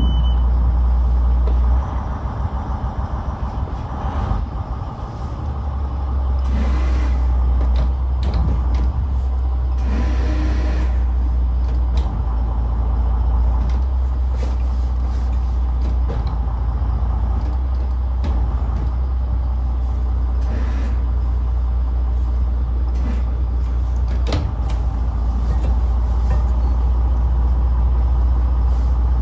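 Boat engine running at low speed during slow manoeuvring, a steady low rumble. It eases off for a few seconds about two seconds in, then picks up again.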